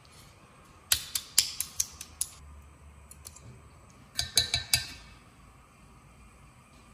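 Wooden utensils clicking and tapping against a stainless steel mixing bowl as crayfish pieces are dredged in flour: a quick run of sharp clicks about a second in, and another short run of clicks with a light metallic ring at about four seconds.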